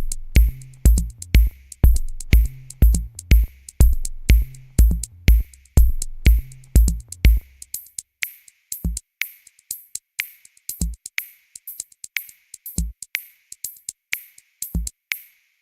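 Background music: an electronic drum-machine beat of kick drum and hi-hats. A little before halfway the kick and bass mostly drop out, leaving the hi-hat pattern with only an occasional kick.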